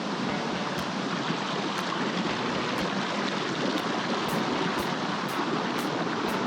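Waterfall pouring into its pool: a steady rush of falling water.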